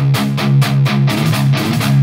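Distorted electric guitar riff from a Gibson Les Paul Custom with a 498T humbucker, played through the Axe-Fx III's Friedman HBE V3 amp model: repeated low chords picked at about five or six strokes a second.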